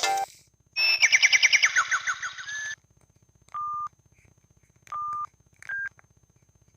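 Samsung SGH-T410 phone sounding through its speaker: a quick run of short electronic notes for about two seconds, then three single beeps, two at the same pitch and a shorter, higher third, over a faint high whine. The beeps are its keypad tones.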